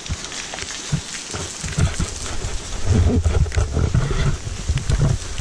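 Hurricane wind gusting against the microphone in a heavy, irregular rumble that swells and drops, over the steady hiss of falling rain.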